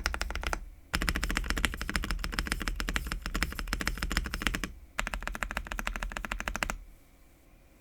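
Fast typing on an Ikki68 Aurora R2 custom mechanical keyboard with lubed Kiwi tactile switches on a polycarbonate plate: a rapid run of keystroke clicks with two brief pauses. The typing stops near the end.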